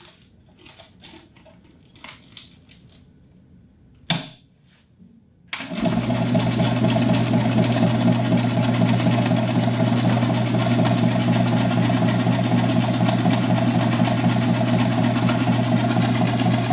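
Faint handling clicks and a short clack, then about five and a half seconds in a laboratory stomacher (paddle blender) starts abruptly and runs steadily with a loud hum. Its paddles pound the sample bag to homogenize the food in its diluent.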